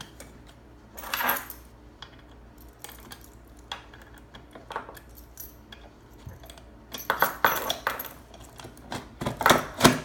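Metal coin box of an OJMAR locker coin lock being slid up into place and locked in with its key: metal clinking and scraping with sharp clicks, loudest about a second in and in a cluster near the end.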